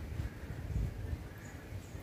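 Low, uneven wind rumble on the microphone outdoors, with a couple of faint short high bird chirps near the end.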